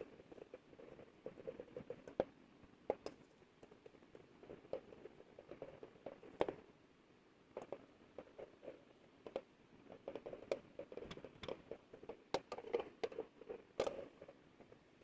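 Gloved hands handling and rubbing a brass bowl, a soft irregular rubbing with scattered light clicks and taps of the metal.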